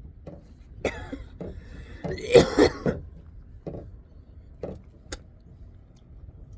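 A man clearing his throat and coughing, loudest about two seconds in, followed by a few light knocks.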